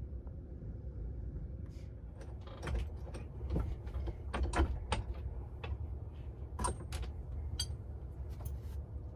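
Irregular metallic clicks and clinks of a socket wrench working the 32 mm steering-wheel nut loose, a few strikes ringing briefly, over a steady low rumble.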